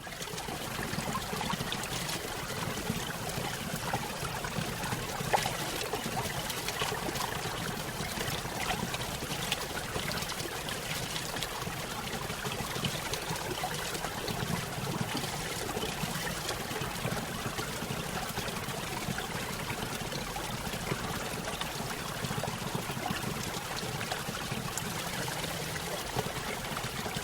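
Small waterfall on a brook: water splashing and trickling steadily over rocks, with small spatters throughout.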